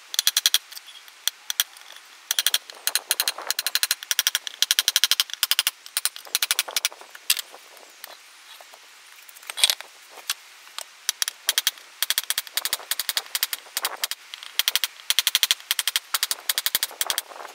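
Heavy hammer striking a steel bolster chisel in quick runs of sharp, ringing taps with short pauses between them, knocking a line along the piece to split it in half.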